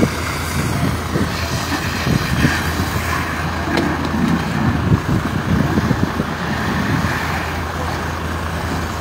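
Steady low drone of a fire truck's engine running, under a rough, continuous outdoor rumble.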